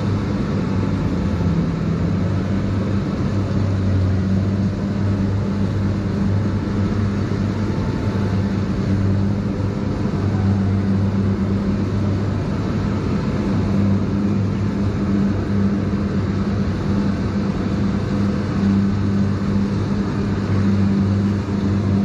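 An engine running steadily at an even speed, a constant low drone.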